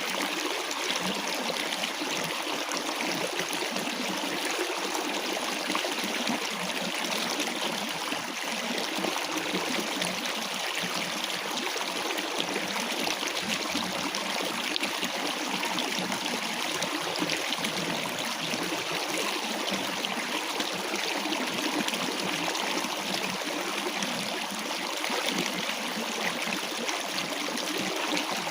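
Running water flowing steadily, an even rushing sound that does not change or break.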